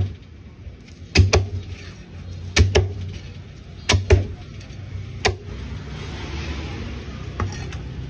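A heavy steel cleaver chopping through roast poultry onto a thick round wooden chopping block: sharp knocks, mostly in quick pairs about a second and a half apart, with a fainter chop near the end.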